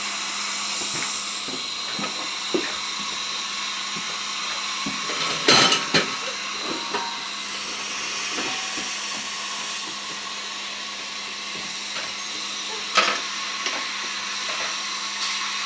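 Dental operatory equipment running with a steady hiss over a low hum, while metal instruments click and clink now and then; a few louder knocks come about five and a half, six and thirteen seconds in.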